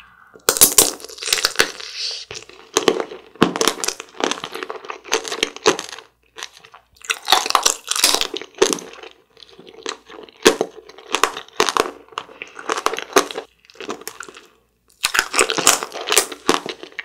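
Close-miked crunching and chewing of an Earth Jelly tanghulu: the hard sugar shell around the gummy cracks between the teeth in repeated crackly bursts with short pauses.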